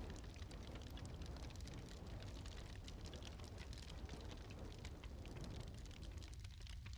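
Wood fire crackling in a fireplace: many small pops and ticks over a low, steady rumble of flames, with a soft rushing that eases near the end.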